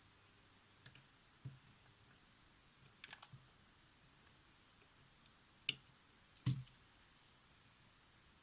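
Sparse small clicks and taps of tools and camera parts being handled, with a quick cluster of clicks about three seconds in and the two loudest knocks a little before and after six and a half seconds, the last with a dull thump.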